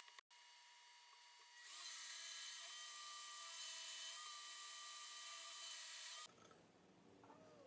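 Benchtop drill press running, its twist bit boring into a wooden board: a steady whine that comes up about a second and a half in and stops a little after six seconds.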